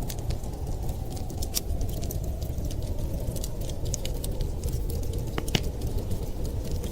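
Wood fire crackling, with irregular sharp pops and snaps and one louder pop about five and a half seconds in, over a steady low rush of wind.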